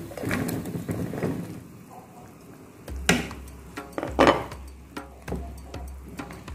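Sliced luffa pieces tipped into a wok of broth, splashing in over the first second or so. A wooden spatula then stirs the pot, with a few sharp knocks and scrapes against the wok, the loudest about three and four seconds in.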